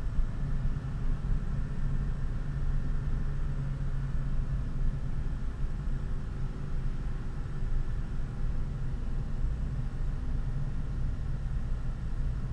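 Honda Civic Si's 2.0-litre four-cylinder engine running at a fairly steady, moderate speed along with tyre and road rumble, heard from inside the cabin.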